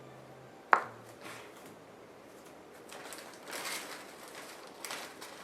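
A single sharp tap less than a second in, then faint rustling handling noises.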